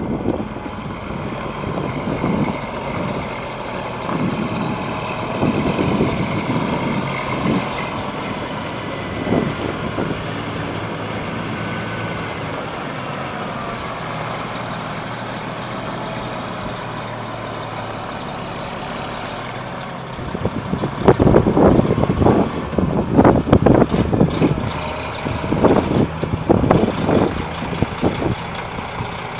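Peterbilt 379 log truck's diesel engine running at low speed as the loaded rig moves past, with faint whining tones that rise and fall. In the last third there are loud, irregular bursts of noise.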